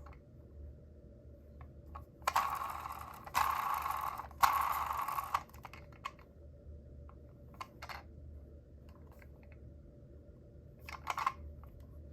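Clatter of small toy minicars being handled or run on a surface: three rattling bursts of about a second each a couple of seconds in, then scattered clicks and another short rattle near the end. No siren is sounding.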